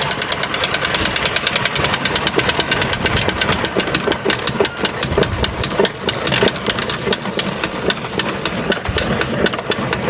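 Retractable hose reel rewinding its hose after a tug releases the latch, the reel's mechanism giving a rapid, steady clicking as the hose is drawn back in.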